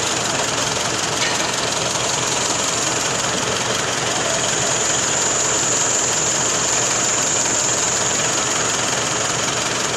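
Diesel engine of a Universal 650 tractor running steadily at close range, with a constant clattering drone.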